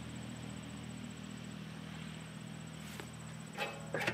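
Crickets chirping steadily in the grass over a low steady hum, with a few short knocks near the end.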